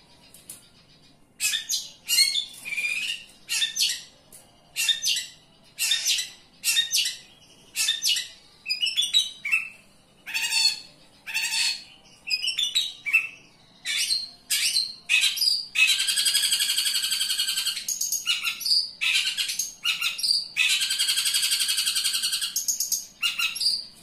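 A caged long-tailed shrike (cendet) singing loudly: short, high notes about once a second, starting about a second and a half in. Twice in the second half these give way to a long, unbroken chattering phrase of about two seconds.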